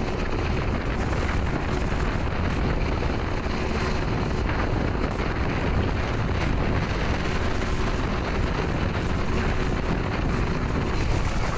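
Motorboat running at speed, its engine a steady drone under rushing water, with wind buffeting the microphone on the moving boat.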